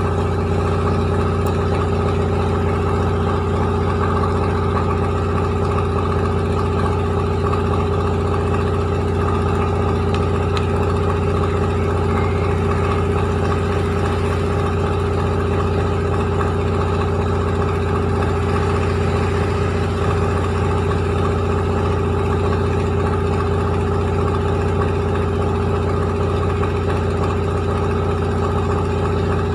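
Rice milling machine running steadily: a constant engine-driven hum with a strong low drone and a steady higher whine over a rushing, grinding noise, unchanging throughout.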